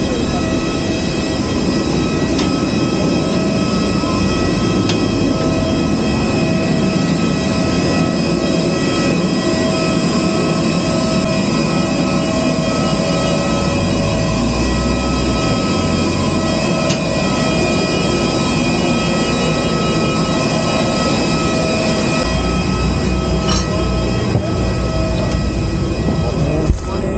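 Steady, loud whine and rumble of a parked airliner's turbine running on the apron, with several high whining tones held constant over a roaring hiss.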